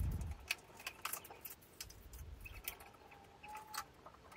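Floor being mopped with a flat mop and plastic bucket: scattered light clicks and knocks, with a low thump at the start and a brief faint squeak about three seconds in.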